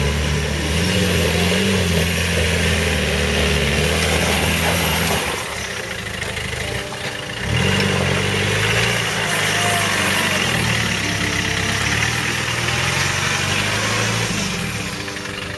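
Land Rover Defender engine labouring off-road, its note rising and falling as it is revved through deep mud. About five seconds in it drops away for a couple of seconds, then picks up sharply again, with mud churning under the tyres.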